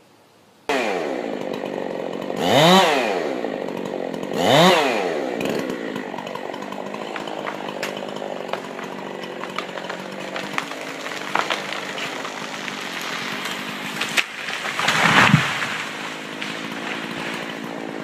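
Chainsaw running high up a standing tree trunk, revving up and down twice near the start, then cutting steadily under load. About fifteen seconds in comes a louder crash as the cut top falls.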